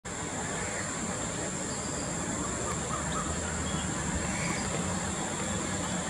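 Steady low rumble of distant road traffic, with a thin, steady high-pitched whine above it and a few faint short chirps about halfway through.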